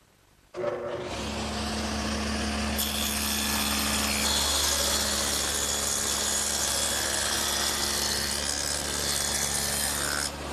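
Table saw with a dado head cutter switching on and running with a steady hum, then cutting a roughly quarter-inch-wide groove along a wooden piece for about seven seconds. The cutting noise drops off just before the end as the piece clears the blade, leaving the saw running.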